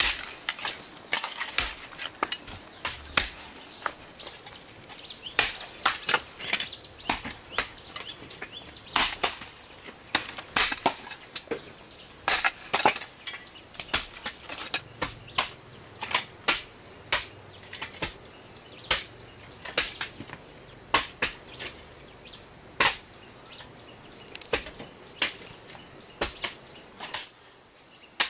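Repeated blows of a hand tool, irregular, about one to two a second, over a steady faint high insect drone.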